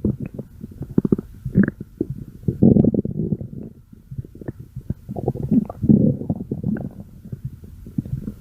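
A person's stomach growling: an irregular run of low gurgles and rumbles broken by quick bubbly pops, with the longest rumbles about three seconds in and again near six seconds.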